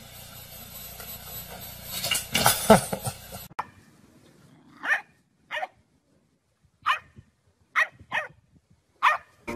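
A loud, noisy burst about two seconds in, then a puppy barking six short, high yaps spaced roughly a second apart, with near quiet between them.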